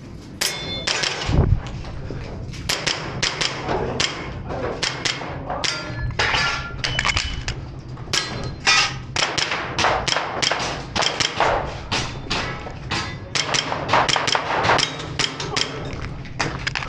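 Fast, irregular run of sharp knocks and taps, several a second, with heavier thumps mixed in.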